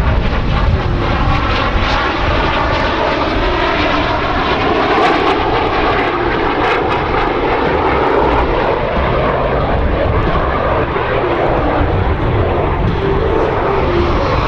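Canadair CT-114 Tutor jets, each powered by a single turbojet, flying past at an air show, with loud, steady jet noise that takes on a slow phasing sweep as they pass.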